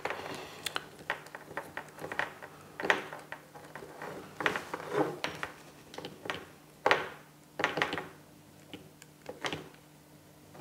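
Handling noise from a thin power cable being uncoiled and shifted by hand: irregular light clicks and rustles as the cable and its plug knock against plastic and the wooden tabletop.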